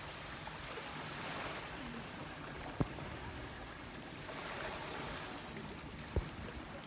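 Small waves washing on a sandy beach, a steady hiss that swells twice. Two sharp clicks stand out, about three seconds in and near the end.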